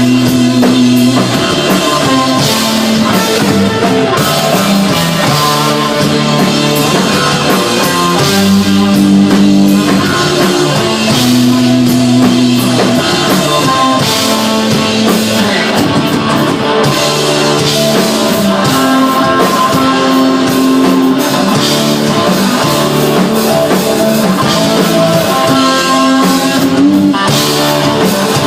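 Desert rock band playing live and loud: electric guitar, bass and drum kit.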